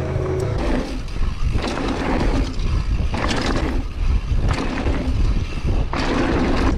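Mountain bike riding a trail, heard from a camera on the bike or rider: wind rushing over the microphone and tyres rolling over rough ground. The noise surges roughly once a second as the bike rattles over bumps.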